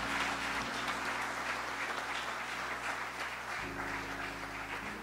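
Congregation applauding steadily, with low sustained notes underneath that shift to a new chord about three and a half seconds in.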